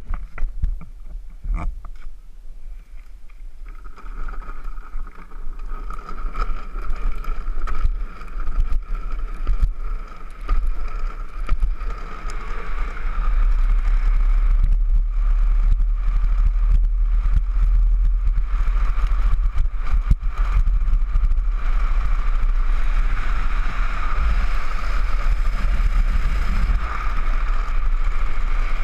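Wind buffeting the onboard camera microphone and small urethane wheels rolling on asphalt as a gravity-powered downhill trike descends, with a steady whine that sets in a few seconds in. The whole grows louder about halfway through as the trike picks up speed.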